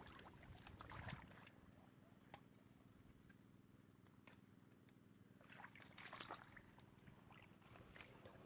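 Near silence, with faint rustling and a few soft clicks.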